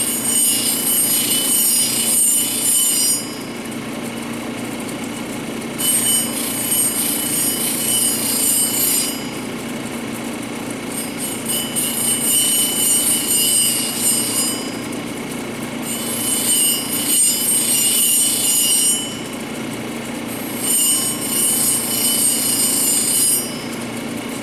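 A cabochon on a dop stick is ground against a wet 220-grit wheel on a cabbing machine, shaping and levelling the dome. A high grinding hiss comes in four strokes of about three to four seconds each, over the steady hum of the machine.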